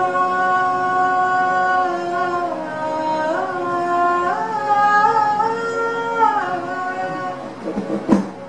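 A woman sings a slow Hindi song phrase in long held notes that step up and down, over a steady drone accompaniment. The phrase ends about 7.5 s in, followed by a short sharp knock just before the end.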